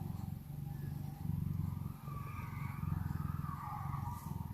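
Domestic cat purring close to the microphone: a steady low rumble of rapid pulses that swells and eases about every second with its breathing.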